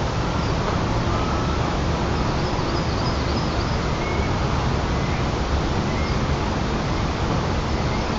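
Steady rushing wind noise on the microphone of a treetop nest camera, with a few faint, short, high bird calls.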